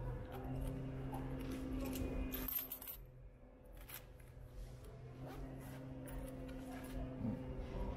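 Low, steady machine hum with a few faint clicks scattered through it.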